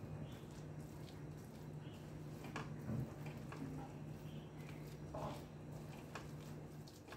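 Spatula stirring a thick, moist mix of grated coconut, caramel and milk powder in a stainless steel pan: soft squishing with irregular light taps and scrapes against the metal.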